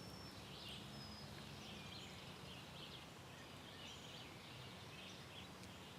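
Faint outdoor ambience: distant small birds singing in short repeated phrases over a low steady hum.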